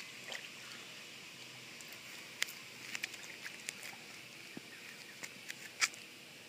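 Scattered sharp clicks and taps from dogs moving about on a concrete patio around a crawfish, over a faint steady outdoor hiss.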